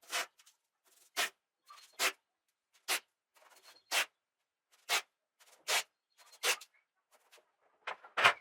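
Short rubbing or scraping strokes, repeating evenly about once a second.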